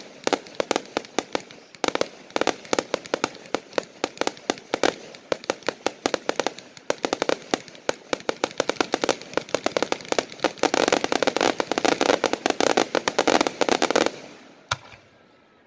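Aerial fireworks bursting: a quick, uneven string of sharp bangs and crackling pops that thickens into a dense barrage about ten seconds in, then stops abruptly near the end, with one last bang after it.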